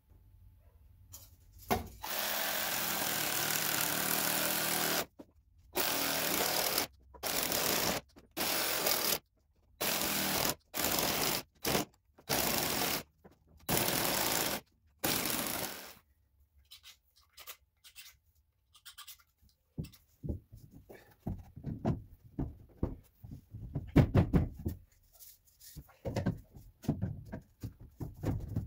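Cordless reciprocating saw cutting through large PVC drain pipe. It runs in one stretch of about three seconds, then in about nine short spurts as the trigger is pulled and released. After a pause, near the end, come scattered knocks and clunks of PVC pipe and fittings being handled.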